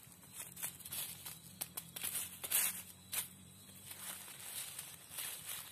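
Sticks prodding and dragging a leaf-wrapped food package out of smouldering charcoal embers: scattered rustles and short crackles and clicks, the sharpest a little past halfway.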